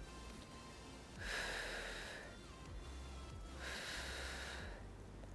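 A person breathing heavily while exercising: two long breaths, each about a second, about two and a half seconds apart. Faint background music runs underneath.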